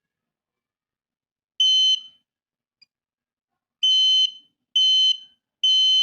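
Buzzer of a laser-beam alarm circuit (laser on an LDR, switched by a BC547 transistor) sounding four short high beeps, one alone a little over a second and a half in, then three in quick succession near the end. Each beep is the alarm going off as the laser beam to the LDR is interrupted.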